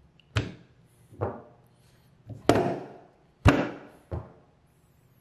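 Lumps of stoneware clay set down on a wooden worktable and a kitchen scale: five dull thuds over about four seconds, as clay is weighed out for one mug.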